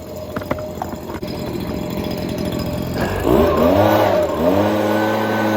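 Small petrol engine of a leaf blower catching about three seconds in and revving up in a rising whine, holding at high speed, then dipping and revving up again near the end.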